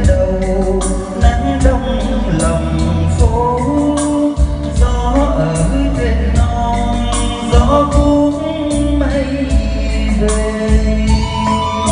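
A man singing karaoke into a handheld microphone over a backing track with a steady beat and heavy bass, played loud through a stage PA speaker system with subwoofers.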